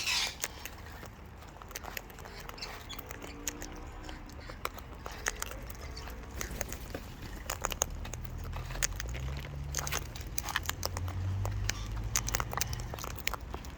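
A pet parrot's beak nibbling and clicking close to the microphone: rapid small crunches and ticks. From about eight seconds in, a low droning hum joins underneath.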